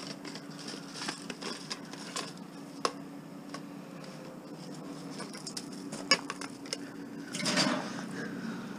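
Light clinks and rattles of a metal wire rack being handled and shaken, with a few sharper clicks, over a steady low hum. There is a longer rustling scuff near the end.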